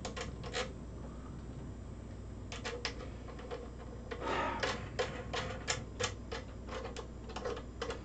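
Scattered small plastic and metal clicks of hands handling cable leads and plugs on a workbench, with a short rustle about four seconds in.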